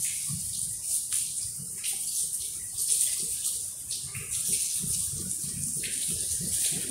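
Running water: a steady hiss with irregular splashy bursts.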